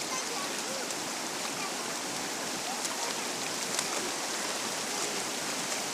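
Fast mountain river rushing over rocks: a steady, even rush of flowing water.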